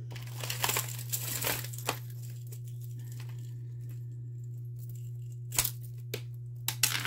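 Hands rummaging through a plastic bag of jewelry: crinkling and rustling, loudest in the first two seconds and again near the end, with a couple of sharp clicks a little after halfway. A steady low hum runs underneath.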